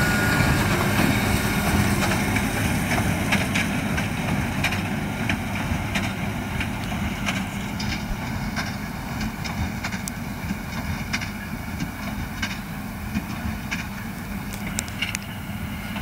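Fendt 936 tractor with a Claas Quadrant 3400 large square baler running in work, a steady engine and machinery hum that fades as the rig moves away, with scattered sharp clicks.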